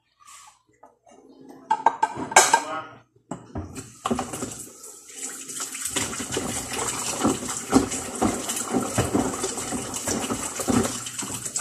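Ceramic dishes clinking and knocking as they are washed by hand, then from about four seconds in a tap running steadily into the sink, with the dishes still clattering under it.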